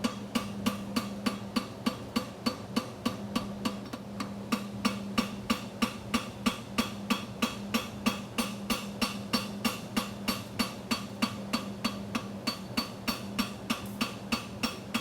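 Steady, rhythmic hammer strikes on a hot steel horseshoe, about three a second, as the farrier forges a set toe across the shoe. A steady low hum runs underneath.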